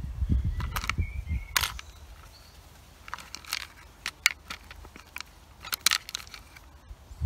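Handling noise from tools and parts being picked up: low rumbling thumps for the first second or two, then scattered light clicks and rustles.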